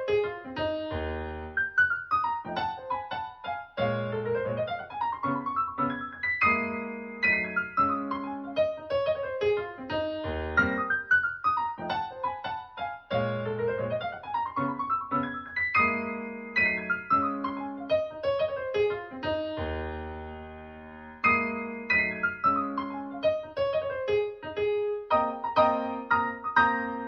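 Solo piano music played back through a Technics SC-C70 MK2 all-in-one music system: quick running arpeggios that sweep down and up the keyboard. Near the end it settles on a held chord that rings on.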